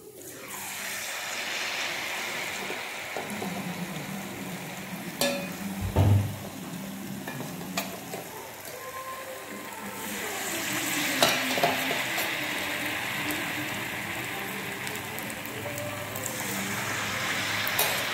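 Spoonfuls of maida batter sizzling as they hit hot oil in a kadai, being deep-fried as bondas. The sizzle swells just after the start and again about ten seconds in as a second spoonful goes in. A few sharp knocks and one heavier thump about six seconds in.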